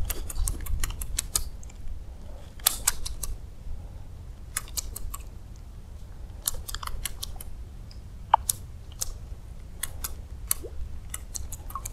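Irregular bursts of sharp clicking from a baitcasting reel and rod as a surface stick lure is twitched and reeled in, over a low steady rumble.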